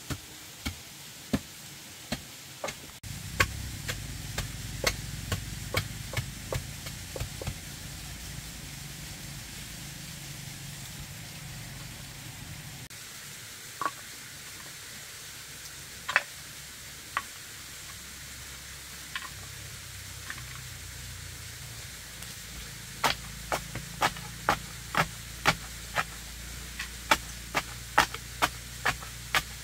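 Sharp knocks in steady runs of about two a second, a run at the start and another over the last several seconds, with only a few single knocks in between and a low steady hum under them for stretches.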